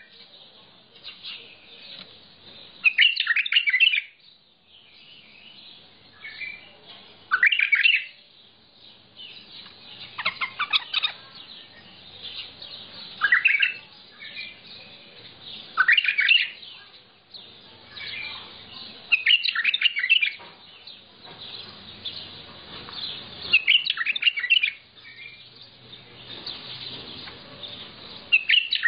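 A bulbul singing: short, loud warbled phrases of about a second, repeated every three to four seconds, with softer chirps in between.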